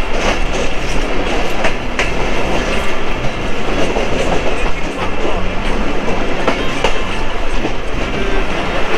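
Moving passenger train heard from inside the carriage: a steady rumble, with the wheels clattering over the rail joints and scattered sharp clicks.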